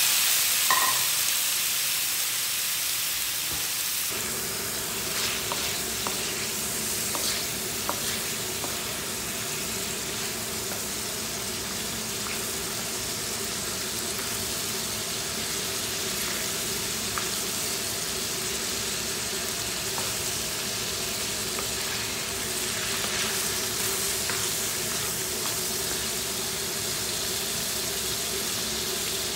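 Chopped meat and fat frying in a hot pan, the sizzle loudest at first and easing within a few seconds into a steady frying hiss. Occasional light taps and scrapes come from a wooden spatula stirring the meat.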